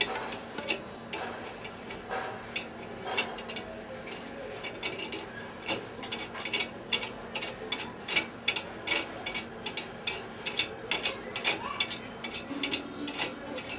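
Irregular metallic clicking and tapping, a few clicks a second and quicker in the second half: a tool working on the hotplate's heating-coil terminal screws and nuts.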